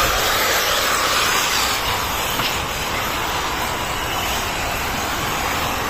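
Several 1/8-scale off-road RC buggies racing away from the start on a sandy dirt track, a steady hissing rush of motors and tyres on loose sand.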